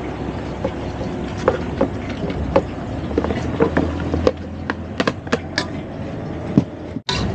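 Metal tongs knocking and scraping against a plastic tub and a stainless steel bowl as cut vegetables are scraped into batter and stirred, many short sharp clicks and clinks over a steady low rumble.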